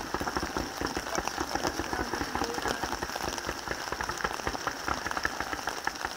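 Distant fireworks crackling: a dense, continuous run of many small rapid pops, over a steady high hiss.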